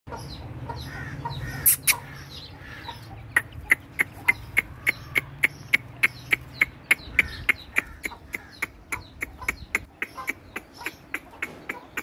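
Chicks peeping with short chirps, then a rapid, even run of sharp clicks, about three a second, starting about three seconds in over a low hum.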